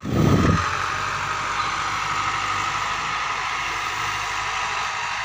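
Massey Ferguson 385 tractor's four-cylinder diesel engine running steadily as it works a field sowing wheat, heard from a distance under a steady hiss. A short, loud low rumble comes right at the start.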